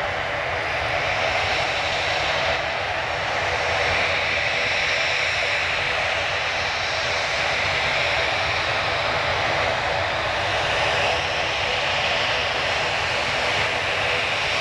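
Boeing 737-800's CFM56-7B turbofan engines running steadily at low taxi power as the airliner rolls slowly toward the listener.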